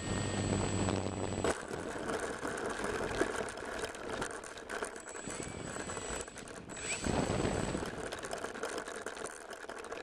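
Electric motor of a Parkzone T-28 RC plane humming steadily with a high whine, cutting off about a second and a half in. Then uneven rattling and clicking from the small airframe and its onboard camera being jostled on the ground, with wind on the microphone.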